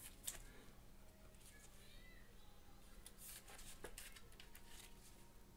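Near silence, with faint scattered scrapes and clicks of gloved hands handling a trading card in a plastic sleeve and toploader.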